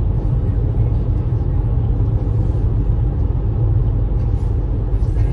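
Steady low rumble of a vehicle driving along a highway, engine and road noise, cutting off suddenly at the end.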